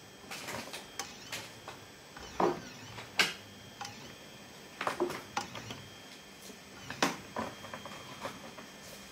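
Mini CNC engraving machine's stepper motors moving a marker pen over a copper PCB blank: a high steady whine that starts and stops with each move, and irregular sharp clicks and knocks, the loudest about three and seven seconds in.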